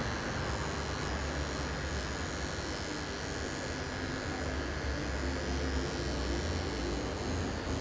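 Electric hair clippers running with a steady buzz while trimming the hair at the back of the neck.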